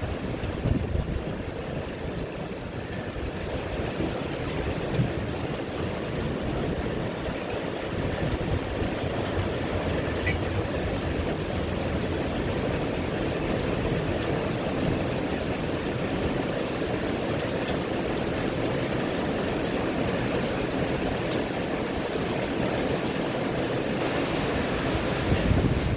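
Heavy rain falling steadily, a continuous rushing noise dotted with faint drop ticks, a little louder after the first several seconds.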